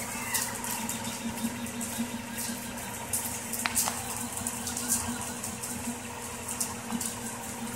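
Rostock MAX delta 3D printer running a print: a steady mechanical hum from its motors and fans, with faint whirring and scattered light ticks as the arms move the print head, and a couple of sharper clicks about halfway through.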